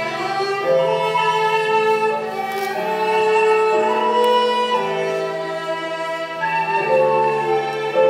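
Live ensemble music: a melody of held notes over sustained lower notes, the notes changing about once a second.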